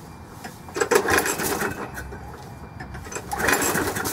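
A Craftsman push mower's air-cooled engine being cranked with its recoil starter rope: two pulls, each a brief whirring crank about a second long, with the engine not catching in between. It is a cold engine that is hard to start.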